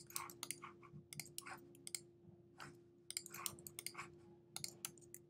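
Irregular clicking of a computer keyboard and mouse buttons in quick clusters, the sound of copying and pasting spreadsheet cells, stopping just before the end.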